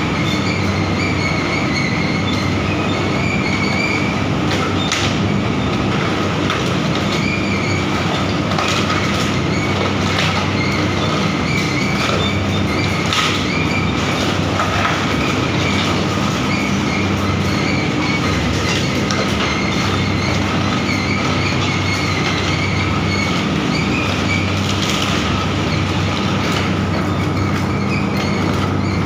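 Animal carcass shredder running: a loud, steady mechanical drone with a held high whine, broken by scattered sharp cracks and knocks.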